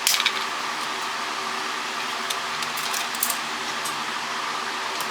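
A few small clicks and rattles of small plastic and metal phone parts being handled, a cluster at the start and more about two and a half to three seconds in, over a steady background hum.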